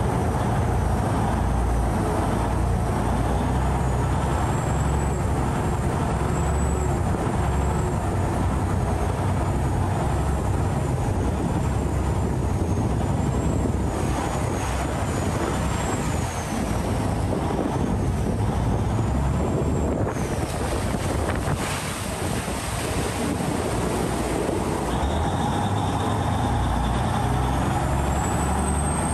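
Khlong Saen Saep canal express boat's diesel engine running loud and steady while the boat is under way, with a faint high whine that wavers up and down in pitch.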